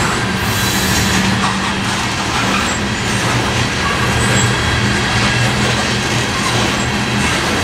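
Tank cars of a Norfolk Southern crude oil train rolling steadily past at close range, wheels running over the rails.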